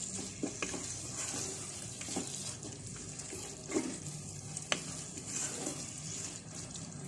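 Onion, tomato and spice masala sizzling steadily in a pot over low heat while it is stirred with a wooden spoon, the spoon scraping and knocking against the pot now and then.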